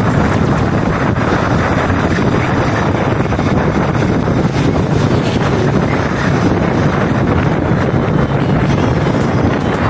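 Steady wind rush buffeting the microphone of a riding motorcycle, with the engine's even drone underneath.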